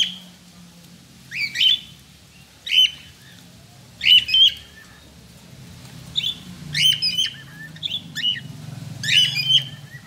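Cockatiels calling: short, sharp, rising chirps, about a dozen, some in quick runs of two or three.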